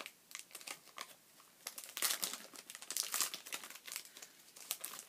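Foil wrapper of a Pokémon trading-card booster pack crinkling in irregular bursts of crackle as it is torn open and handled, densest about two and three seconds in.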